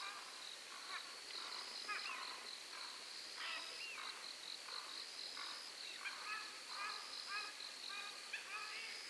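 Night insects trilling in a high, steady tone that comes and goes in stretches of about a second, over many short, repeated chirping calls from animals at the lakeside.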